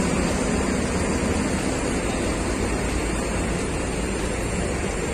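Steady rushing noise of bus-terminal ambience with a faint low engine hum, typical of buses idling nearby.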